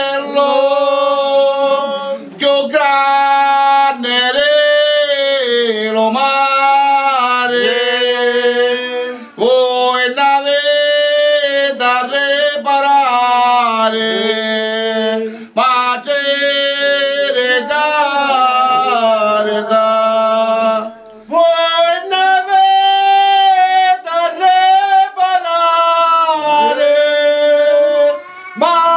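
Men singing a traditional Sicilian devotional song to the Madonna unaccompanied, in long held notes ornamented with wavering pitch turns. The phrases are broken by short breaths every few seconds.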